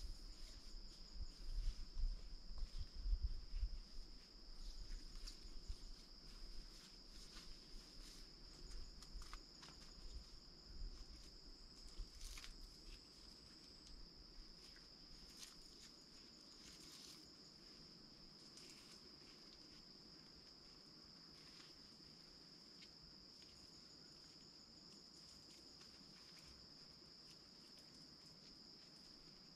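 Faint, steady high-pitched insect chirring in the woods. In roughly the first half, rustling and low bumps come and go, then fade, leaving only the insects.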